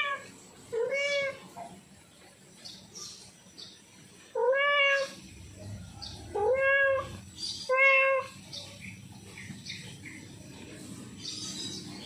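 Domestic tomcat in heat meowing to call a female: four loud meows, each rising then falling in pitch, one about a second in and three more in quick succession between about four and a half and eight seconds in.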